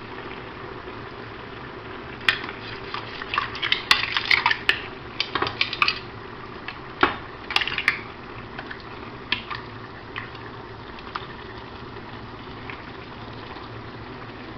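Broth boiling steadily in a paella pan, with scattered clinks and knocks as pieces of seafood are dropped in and a utensil taps against the pan. The clinks cluster in the first half and thin out later.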